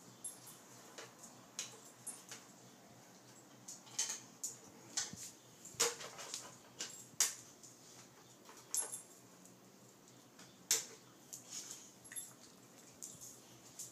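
Plastic treat-puzzle toy being nosed and pawed by a boxer dog on a tile floor: irregular clicks and knocks of hard plastic, with several louder knocks around the middle.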